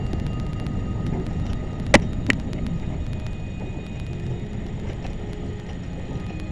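Vehicle driving, a steady low rumble of engine and road noise, with two sharp knocks about two seconds in, a fraction of a second apart.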